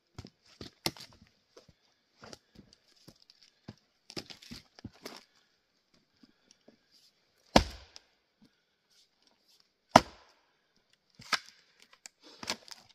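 An axe splitting tamarack firewood rounds: two heavy, sharp strikes about two and a half seconds apart in the middle, with lighter knocks and wood clatter around them.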